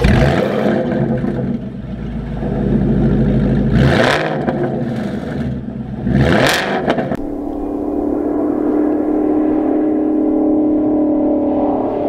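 Shelby Mustang Super Snake's supercharged V8 running through its quad exhaust: two sharp rev blips a couple of seconds apart, then settling to a steady idle about halfway through.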